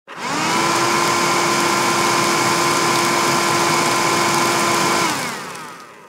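Oreck Electrikbroom handheld vacuum cleaner switched on, its motor spinning up within half a second to a steady high whine over a rush of air. It is switched off about five seconds in, and the whine falls in pitch as the motor winds down.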